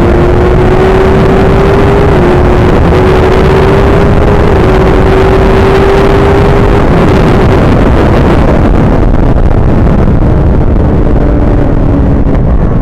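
Superbike inline-four engine, likely a Suzuki GSX-R1000, held at high revs on full throttle, its note climbing slowly for about seven seconds over a loud, constant rush of wind and road noise. Then the engine note drops away and a lower engine note comes back near the end.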